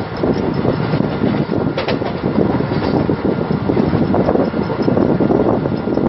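Express train passenger coach running at speed, heard from its open door: wind buffeting the microphone over the steady rumble of wheels on rail, with one sharp clank about two seconds in.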